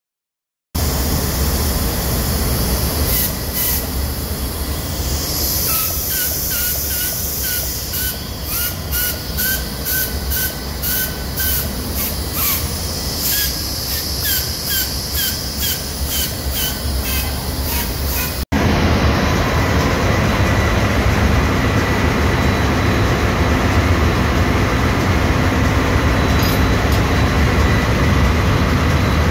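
Generator air starter motor test-run on the bench with compressed air: loud hissing with rapid clicking and short squealing chirps. About two-thirds through, a cut to the steady, louder machinery drone of a ship's engine room.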